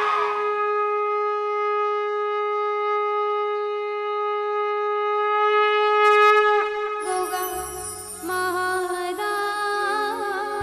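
A conch shell (shankh) blown in one long steady note for about six seconds, its pitch dropping as the breath runs out, as at the start of an aarti. About seven seconds in, devotional music with drums and bass begins.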